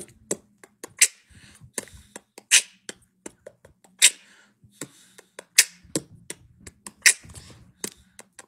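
A sparse percussive beat with no melody, set up for a freestyle rap: a sharp, hissy snare-like hit about every second and a half, with softer clicks and taps between, over a faint low hum.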